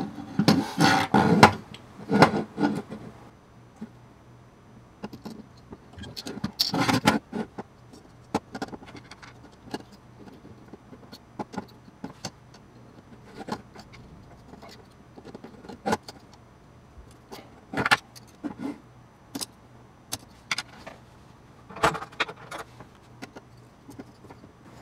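Irregular clinks, knocks and rattles of small metal parts as an aluminium instrument plate with dial wheels is handled and a spanner is tried on its nuts. There is a cluster of knocks near the start and another about seven seconds in, with scattered single clicks between.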